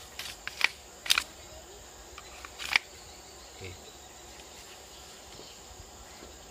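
A golok blade being slid into its tight-fitting wooden sheath: a few sharp wooden clicks and knocks in the first three seconds, the loudest a double knock about a second in. A steady high insect drone runs underneath.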